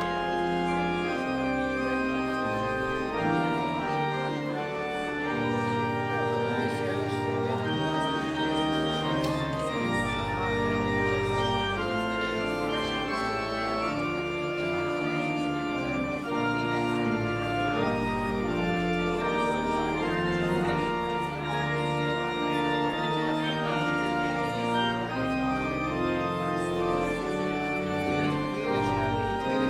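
Church organ playing the closing voluntary after the benediction: held chords moving every second or so over low pedal bass notes.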